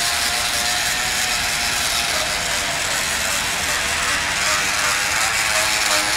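Bicycle rigged to sound like a sports motorbike, ridden along with a steady, rapid buzzing rattle from its wheel.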